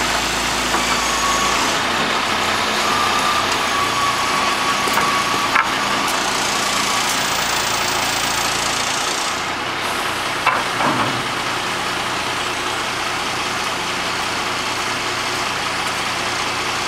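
Boom truck's engine running steadily to power its crane during a lift. A faint whine sounds in the first half, and there are two brief knocks partway through.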